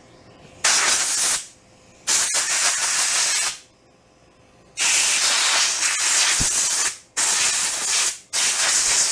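Compressed-air blow gun blasting dust out of a lawn mower's pleated paper air filter: five loud hissing blasts of air with short pauses between, the longest about two seconds.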